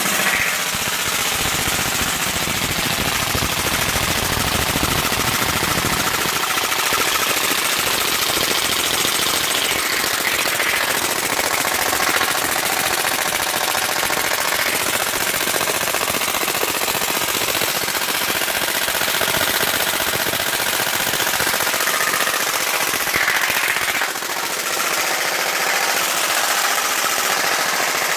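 VFC M27 airsoft replica with a Daytona HPA gun kit firing on full auto from an HPA air tank, a fast, steady mechanical rattle of rapid shots. The continuous firing is the break-in (lapping) run of the new Daytona engine.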